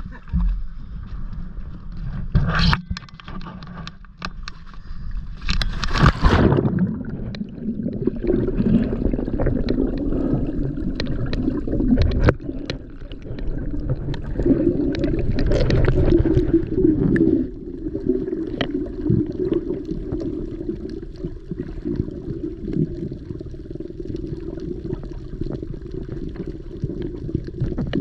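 Sea water splashing and gurgling as divers enter the water, with a loud splash about six seconds in and choppy, muffled water noise after it.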